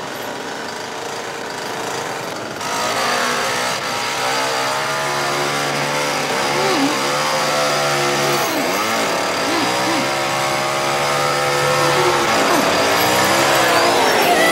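Gasoline chainsaw engine running hard and revving, its pitch repeatedly dropping and climbing again; it grows louder a couple of seconds in.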